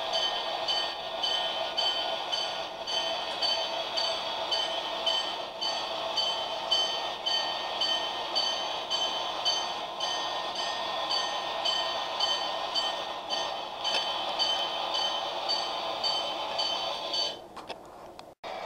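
HO-scale model trains running on the layout track, with a high ringing tone repeating about twice a second over the running noise. Both stop shortly before the end.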